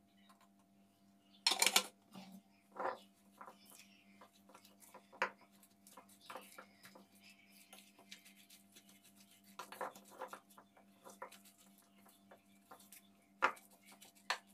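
Wooden spoon stirring and scraping a parsley-and-flour mixture in a glass bowl: irregular taps, knocks and scrapes against the glass, the loudest clatter about a second and a half in and again near the end, over a faint steady hum.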